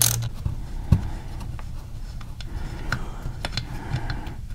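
Light metal clicks and ticks from loosening the primary drain plug on a Harley-Davidson Twin Cam's primary case: one sharper click about a second in, then scattered faint ticks as the socket comes off and the plug is worked out by hand.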